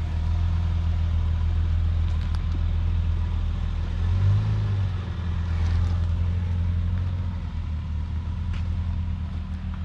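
Acura TL's V6 running at low revs as the car pulls away: a steady low exhaust drone that swells briefly about four seconds in, then fades as it moves off.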